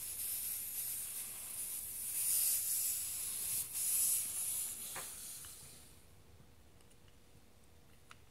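Compressed air hissing from the branch port of a Johnson T-400 pneumatic thermostat as a gauge adapter is screwed into it. One sharp click comes about five seconds in, and the hiss dies away by about six seconds in.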